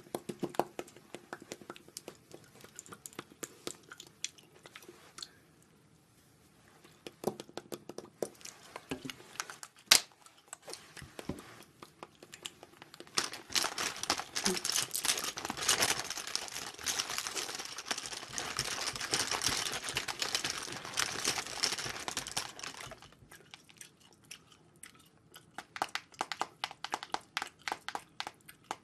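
Makeup things being handled at close range: light clicks and taps of cosmetic cases, with one sharp click about ten seconds in. Then comes about ten seconds of dense rustling and crinkling as hands rummage through a cosmetics pouch, and more scattered clicks near the end.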